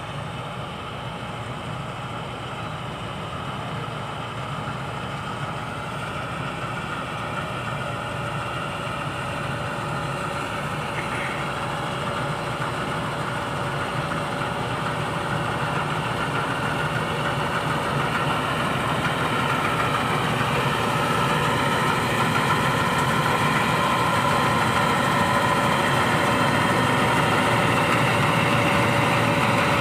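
Mahindra Arjun 605 harvester's diesel engine running steadily, growing gradually louder, with a steady whine that strengthens in the second half.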